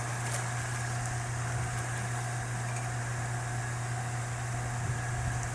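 A steady low mechanical hum with faint, even higher tones above it, unchanging throughout.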